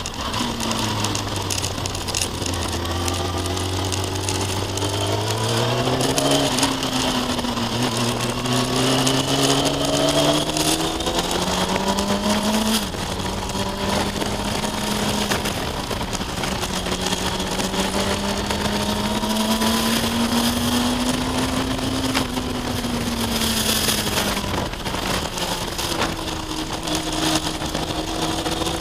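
Kawasaki ZX-6R 636 sportbike's inline-four engine heard from on board while riding, its note rising and falling with the throttle through the corners, over a steady rush of wind noise.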